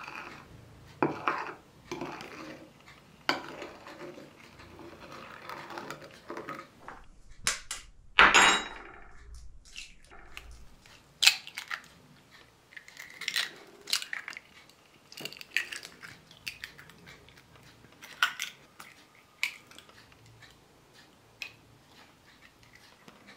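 Hand-mixing kitchen sounds: a spoon scraping and stirring flour and milk in a ceramic bowl, with a louder clatter about eight seconds in. After that come sharp taps and cracks of eggshells broken on a bowl rim, with shells crunching and dishes clinking.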